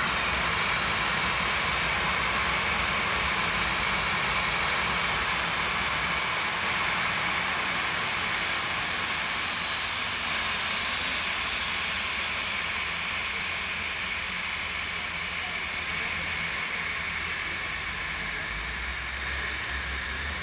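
Boeing 737-800's CFM56 turbofan engines running at idle as the jet taxis in, a steady jet whine and hiss that slowly gets quieter.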